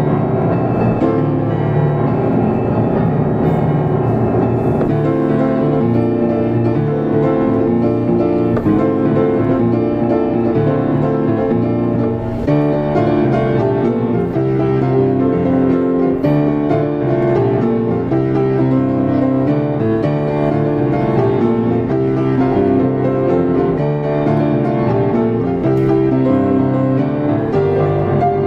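Diapason grand piano played solo in a fast, busy piece, with many quick notes and strong low-register chords.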